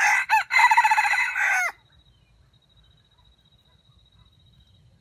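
Red junglefowl (wild chicken) rooster crowing once: a short first note, then a longer call that drops in pitch as it ends, under two seconds in all.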